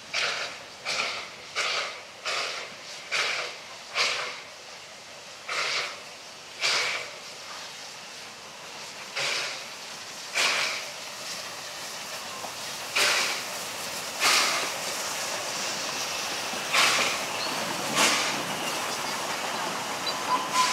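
South African Railways NG/G16 Beyer-Garratt steam locomotive NG129 chuffing as it works past. Its exhaust beats come about one every two-thirds of a second at first, then further apart, over a rising rumble of the train rolling by. A thin steady squeal begins just before the end.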